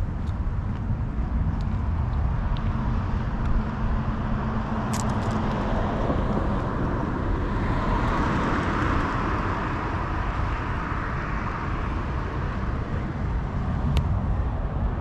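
Outdoor street ambience with a steady low rumble and a car passing, its road noise swelling and fading about halfway through. A few short sharp clicks come at about 5 seconds and again near the end.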